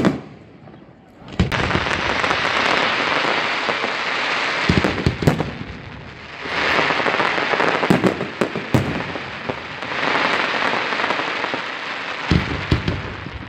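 Aerial firework shells bursting: sharp bangs at the start and about a second and a half in, then more bangs around five, eight and twelve seconds in. Three stretches of dense crackling each last a few seconds.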